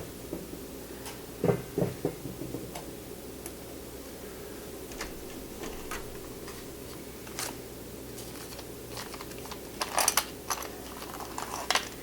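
Scattered light clicks and knocks, a few in quick clusters, over a steady low hum.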